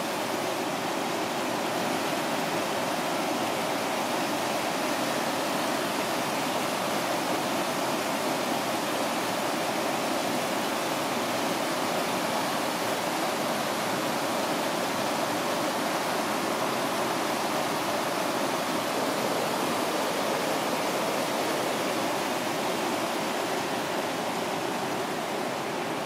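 Falls of Dochart, a rocky river cascade, with water rushing steadily over the rocks in an even, unbroken noise.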